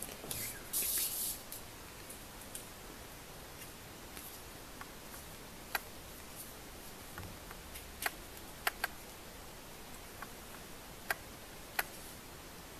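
Paper rustling briefly as hands handle a printed template sheet on a printer's flatbed tray, then a handful of light, sharp clicks and taps from handling, over faint room tone.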